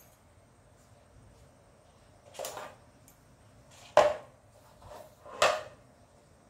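Three short knocks of a hand and arm against a tabletop while small yarn flowers are pushed around on it, spaced about a second and a half apart, the middle one the loudest.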